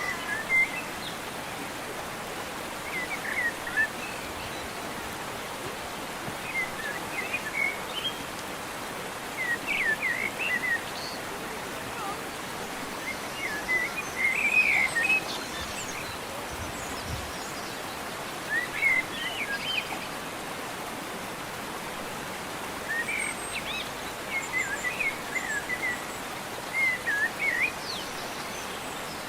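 Songbirds singing short, high chirping phrases every few seconds over a steady, even background hiss.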